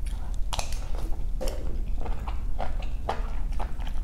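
Close-miked mouth sounds of eating tom kha coconut soup from a spoon: wet sipping and chewing, heard as a string of short, wet clicks and smacks.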